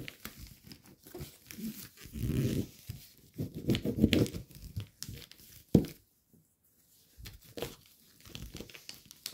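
Gold foil origami paper crinkling and rustling in irregular bursts as it is folded and creased by hand, with a sharp tap a little over halfway through.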